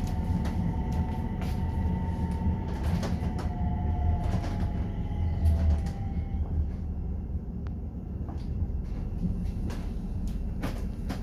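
Tram interior sound as the tram slows for a stop: a steady low rumble with a thin whine that falls slightly in pitch and fades out about six seconds in, over scattered clicks and rattles.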